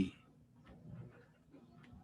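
Quiet room tone in a pause between spoken syllables, with a faint soft sound about half a second to a second in and a tiny click shortly before the end.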